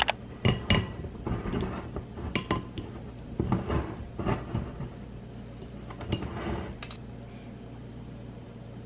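Corkscrew's metal foil knife cutting around the capsule on a wine bottle's neck: a run of small clicks, scrapes and clinks against the glass that stops about seven seconds in.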